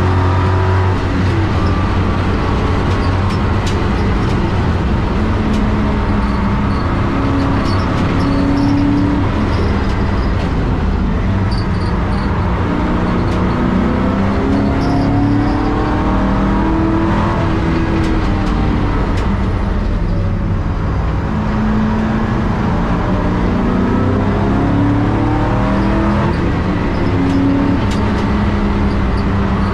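A track car's engine, heard from inside its stripped, caged cabin, revs up and drops back again and again as it accelerates, shifts gears and slows for corners. Steady tyre and wind noise runs underneath.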